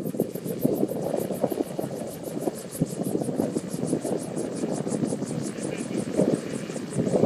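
Gyrocopter after landing, its rotor blades swishing in a regular beat that slows steadily as the rotor spins down, over the steady running of its engine.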